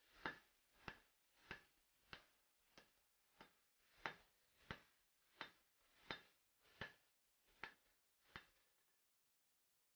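Hand hammer forging a red-hot steel axe head on an anvil: about thirteen steady, evenly spaced blows, roughly one every two-thirds of a second, stopping near the end.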